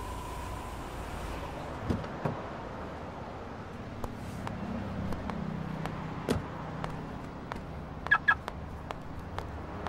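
Car door being opened and the driver getting out: scattered light clicks and knocks of the latch and door, with a quick cluster of sharp clicks a little after eight seconds.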